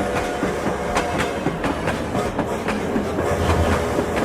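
Train running along the track, its wheels clacking over rail joints at irregular intervals over a low rumble and a steady hum.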